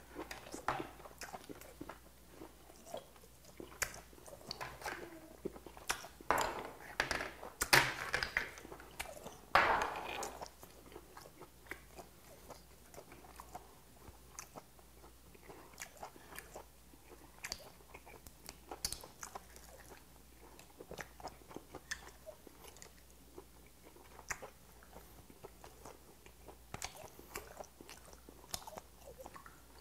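Close-miked chewing and wet mouth sounds of a person eating boiled white whelk meat, with many small clicks and smacks. It gets louder for a few seconds from about six to ten seconds in.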